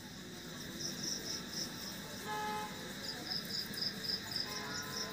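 A cricket chirping in short, even pulses, about four a second, which stop for a moment and start again. About two seconds in there is one brief horn toot.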